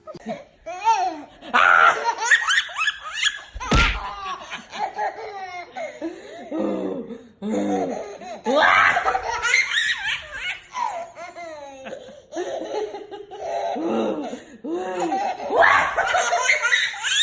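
A baby laughing in repeated bursts of belly laughter, with a single sharp thump about four seconds in.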